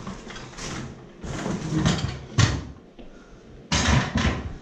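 Paint-spattered wooden stepladder being shifted: a run of knocks and bumps, the loudest pair close together about four seconds in.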